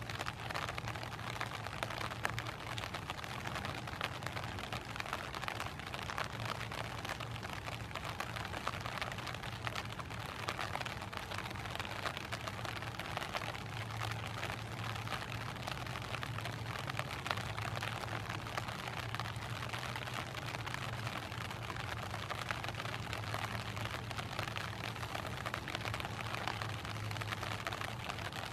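Rain hitting an umbrella held over the microphone: a dense, steady run of small drop impacts, with a low steady hum underneath.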